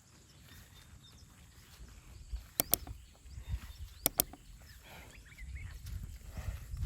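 Outdoor ambience: a low rumble with faint bird chirps, broken by two sharp double clicks about a second and a half apart.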